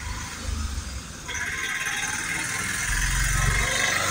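Auto-rickshaw engine approaching and passing close by, growing louder and peaking near the end.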